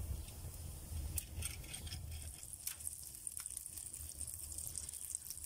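Butter melting and foaming in a frying pan over a wood fire, with a soft, high sizzle that grows from about halfway through, and a few sharp crackles.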